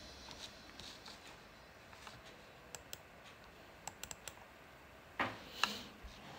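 Foil wrapper of a Knorr stock cube being unwrapped by hand: scattered small crinkling clicks, with a louder rustle a little after five seconds in.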